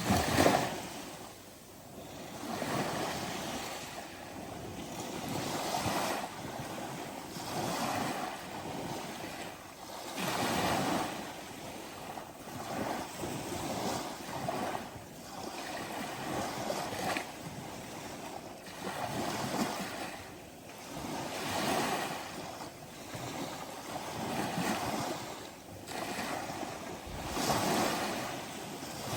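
Ocean surf: waves washing in, a steady rush that swells and eases every two to three seconds, loudest a moment after the start.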